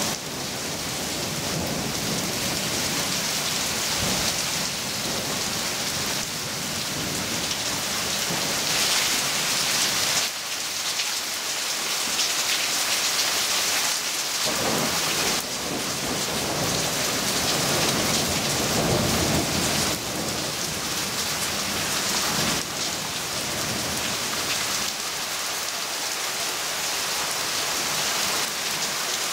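Heavy rain falling steadily on leaves during a thunderstorm, with a long rumble of thunder about halfway through.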